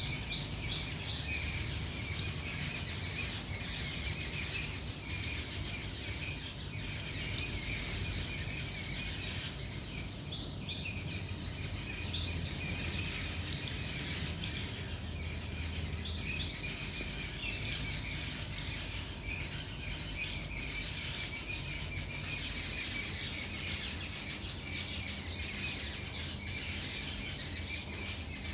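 Morning chorus of many unseen birds chirping and calling without a break, with a low steady rumble underneath.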